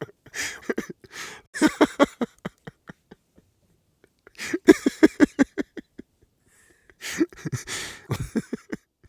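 A man laughing in three separate bouts, each a quick run of "ha" pulses that slows and fades, with short pauses between them.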